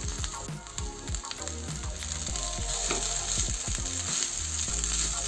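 Boiled vermicelli and sliced vegetables sizzling in a non-stick frying pan over a high gas flame. A spatula stirs through them with small scrapes and ticks.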